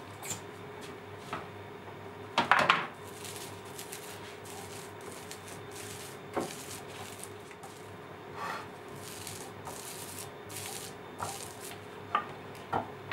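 Wood glue being spread over a panel of hardwood strips with a plastic spreader, a soft rubbing and scraping. Loose wooden strips clatter loudly about two and a half seconds in, and knock sharply a few times near the end as they are set down on the panel.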